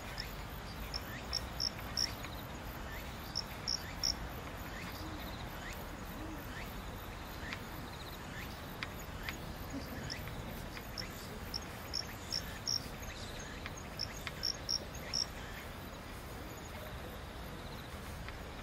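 Outdoor ambience: a steady faint hiss with short, high chirps in quick runs of three to five, repeating several times.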